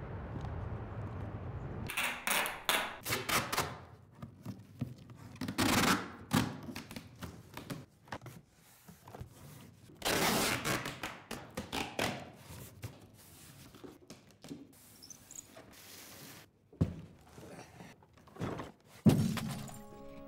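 Paper and a cardboard box being handled: irregular bursts of rustling and scraping, then a few sharp thunks near the end.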